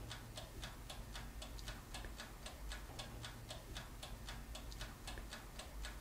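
A toaster oven's mechanical clockwork timer ticking steadily and faintly, about four ticks a second, as the oven heats, over a low steady hum.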